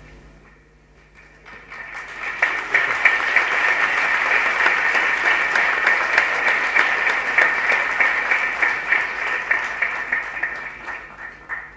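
Audience applauding: the clapping starts about a second and a half in, builds quickly, holds steady for several seconds and dies away near the end.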